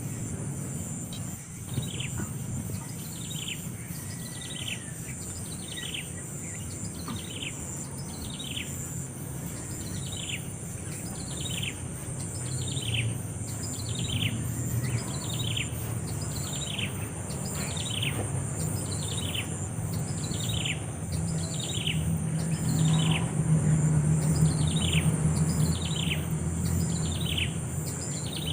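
A bird calling over and over, a short falling note a little more than once a second, with a steady high insect drone behind it.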